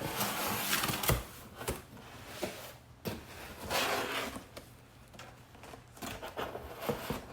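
Packaging being handled: irregular rustling with scattered knocks and sharp clicks.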